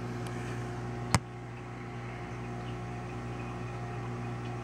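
Steady electrical hum of reef aquarium equipment, with one sharp click about a second in.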